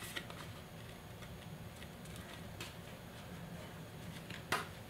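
Faint rustling and light ticks of a paper tag being handled while red embroidery floss is stitched through it, with one sharper click near the end.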